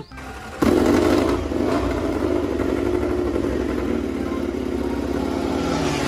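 Honda RC213V MotoGP race bike's V4 engine comes in suddenly about half a second in, then runs at a fast, steady pulse with no change in pitch.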